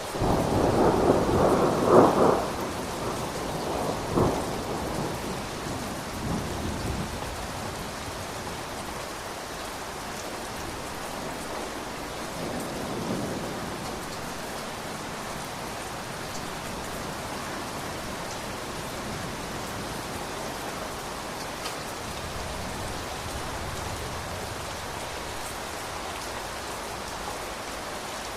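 Steady rain falling, with a thunderclap at the start that rumbles loudly for a few seconds, cracks again about four seconds in, and fades out, followed by a fainter distant rumble partway through.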